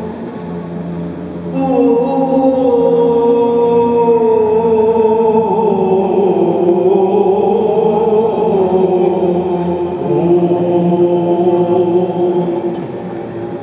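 Byzantine chant: male cantors singing a Communion hymn in plagal fourth mode, one long melismatic melody line over a steady held drone (the ison). The melody grows louder about a second and a half in.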